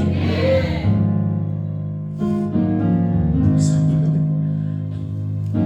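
Keyboard playing sustained, held chords that change every second or two.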